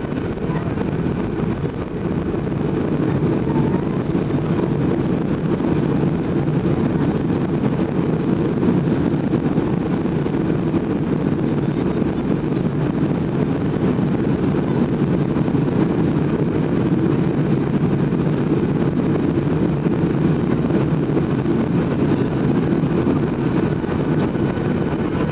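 Boeing 737 landing rollout heard from the cabin over the wing: a loud, steady roar of the engines, the airflow and the wheels on the runway. It swells over the first couple of seconds as the plane decelerates with its spoilers raised, then holds steady.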